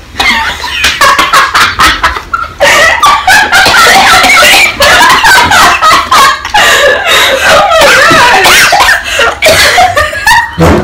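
Two girls laughing hard and squealing, one reacting to a spritz of perfume sprayed into her mouth; loud and almost continuous, with short breaks.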